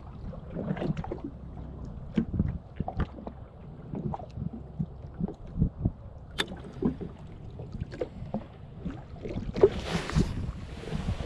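Small waves lapping and slapping irregularly against the hull of a drifting jet ski, its engine off. A burst of rushing wind noise on the microphone comes near the end.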